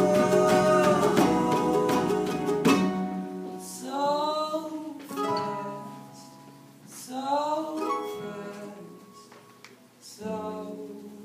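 Live acoustic music: plucked-string chords ringing out with a singing voice, a rising swooping note about four seconds in and again about seven seconds in. The sound fades almost away near the end before new chords start.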